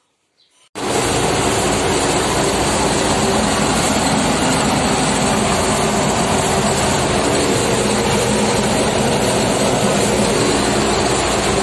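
Massey Ferguson 187 combine harvester running, a loud steady diesel-and-machinery din that starts abruptly about a second in.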